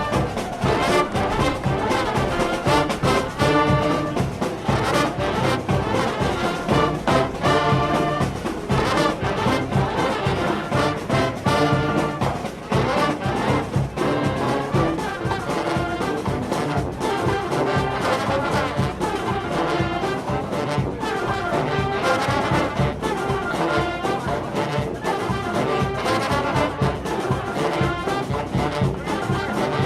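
Brass instruments playing music, with many pitched notes changing throughout and sounding like trombones and trumpets.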